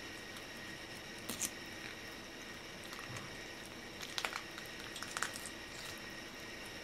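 Wet squishing and soft crackling as a raw mackerel's head is pulled off and its guts come out with it: brief squelches about a second in, then a cluster around four seconds in and another a second later. A steady faint hum runs underneath.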